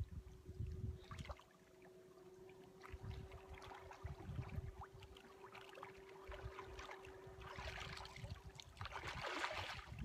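Shallow water lapping and splashing on the shore, with wind rumbling on the microphone and a faint steady hum underneath. Near the end the splashing grows louder as a person wades through waist-deep water toward the shore.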